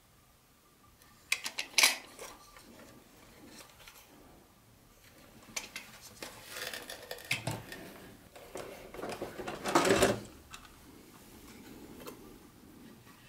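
Handling noises of plastic toy train cars being lifted from and set down in their packaging tray. There are a few sharp plastic clicks about two seconds in, then rubbing and rustling, and the loudest clatter about ten seconds in.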